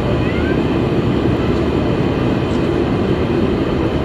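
Steady cabin rumble inside a Boeing 747-400 on the ground: the four-engine jet's engines running at low power, heard through the cabin. A couple of faint, short rising squeaks sound about half a second in.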